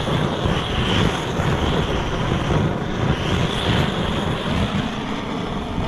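Handheld gas torch burning with a steady roar while singeing the feathers off a plucked goose. The torch has no piezo igniter and is lit with a lighter.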